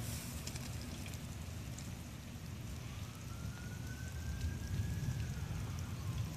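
Steady outdoor rain noise with a low wind rumble on the phone microphone. A faint distant siren wails through it, rising from about halfway in and falling away near the end.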